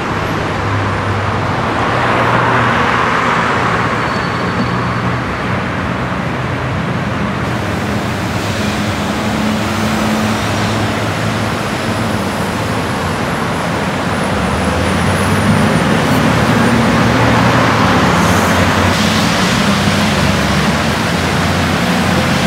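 City street traffic: steady road noise from passing cars and buses, with engine hum that swells as vehicles go by, louder in the second half.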